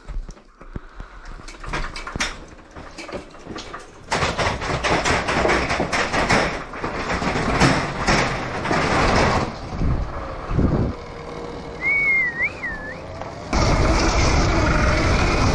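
Homemade electric Honda CR dirt bike rolling down metal-grate stairs: a run of knocks and rattles as the tyres drop from step to step and the chassis shakes. Near the end it changes to a steady electric-motor whine with tyre noise as the bike rides over grass.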